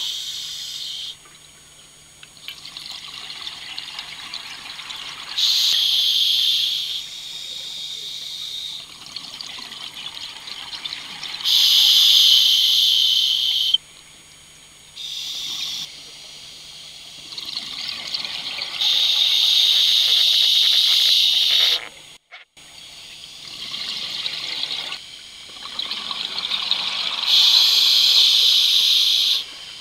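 A scuba diver breathing through a regulator, heard underwater: four loud bursts of exhaled bubbles a few seconds apart, with quieter hissing inhalations between them.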